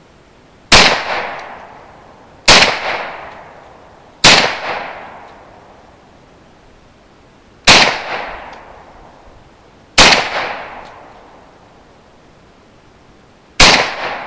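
Tokarev TT-33 pistol firing six single shots of 7.62×25mm Tokarev, spaced about two to three and a half seconds apart, each shot trailing off in a long echo.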